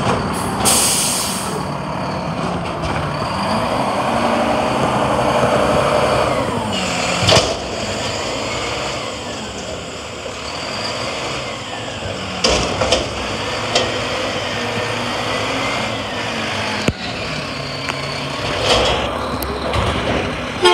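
Front-loading garbage truck with a McNeilus body: the diesel engine revs up and down as it drives the hydraulic forks lifting a dumpster over the cab to empty it. A burst of air hiss about a second in, and several sharp metal bangs and clanks from the dumpster and lift arms.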